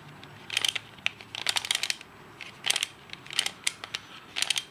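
Plastic Wolf Tooth (Skewb Star) twisty puzzle being turned by hand: short clusters of plastic clicks and clacks, about five turns roughly a second apart, as a move sequence is repeated.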